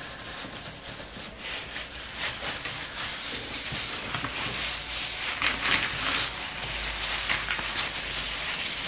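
Plastic-gloved hands rubbing and smearing paraffin oil over a wooden cutting board: a steady wet rubbing noise made of many small uneven strokes.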